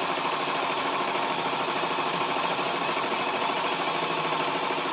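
Milling machine running a fly cutter across a steel plate, taking a steady facing cut through the mill scale, with the hiss of a coolant mist spray over it.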